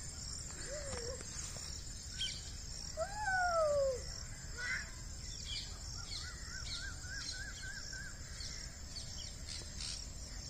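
Birds calling outdoors: a loud drawn-out falling call about three seconds in, then a quick run of about eight short repeated chirps a few seconds later, over a faint high pulsing in the background.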